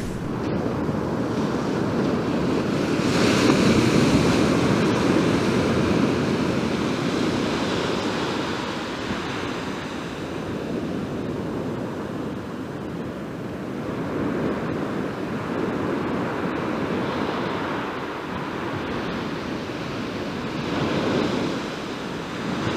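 Sea surf breaking on a beach, a steady wash that swells and fades as each wave comes in, loudest a few seconds in.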